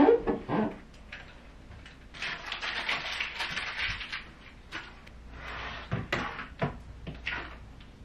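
Tidying at a desk: small objects handled and set down, rustling, and a few light knocks and clicks, with a desk chair taken about a third of the way in.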